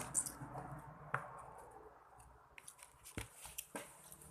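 Close-up eating sounds: soft chewing and mouth noises with scattered small clicks and taps while eating grilled tilapia by hand.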